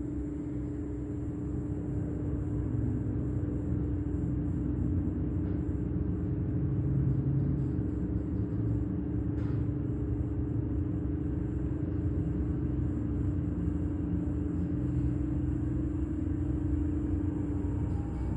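Hydraulic elevator in travel: a steady hum from the pump motor over a low rumble as the car rises. The hum drops away near the end as the car slows to a stop.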